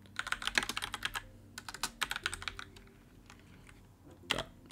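Typing on a computer keyboard: two quick runs of keystrokes in the first half, then a single louder key press near the end.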